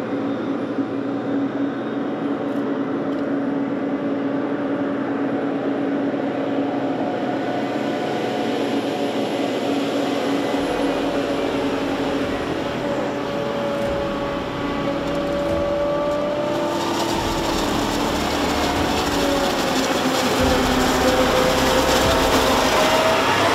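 Heavy farm machinery running: big engines under load, with tones that drift up and down and deep rumble and hiss building in the second half.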